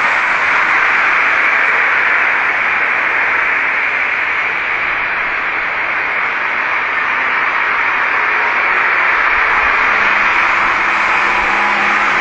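Loud, steady static-like hiss, with no distinct sound standing out of it.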